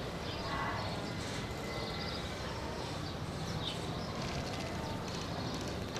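Steady rural outdoor ambience with faint, scattered bird chirps.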